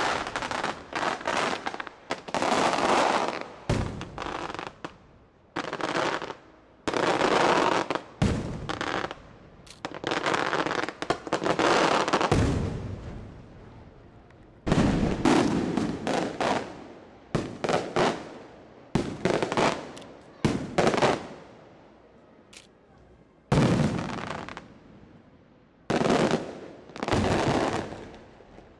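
Aerial firework shells exploding in rapid volleys: loud sharp reports, several close together, each trailing off in a rolling echo, with a couple of brief lulls between volleys.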